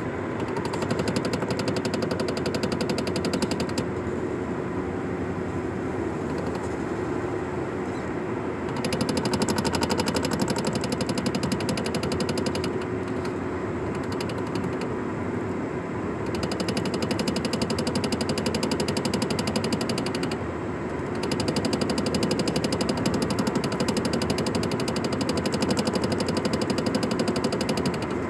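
Rapid, steady knocking from a Nissan Sentra driving in a straight line at over 30 mph, over a steady hum; the knocking grows louder in stretches of a few seconds.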